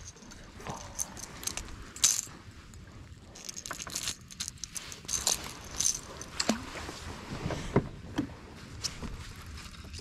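Irregular small clicks and light metallic rattles of fishing gear being handled on a kayak, with a sharper knock about two seconds in.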